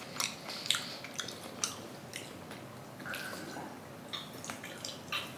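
A person chewing food with their mouth close to the microphone: wet squishy smacks and irregular small clicks.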